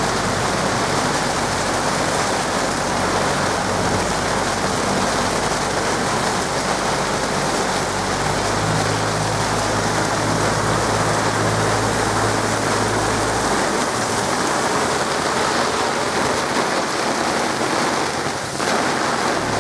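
Heavy rain pouring down steadily on a sailboat in a storm, with a low hum underneath for a few seconds in the middle.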